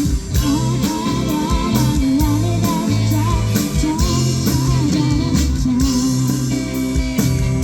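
A live band playing a song: a steady drum beat and bass under a wavering lead melody line with vibrato, with guitar.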